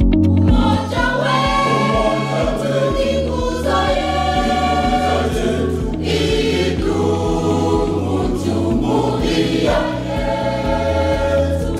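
Background music: sung voices in long held phrases over a steady pulsing bass.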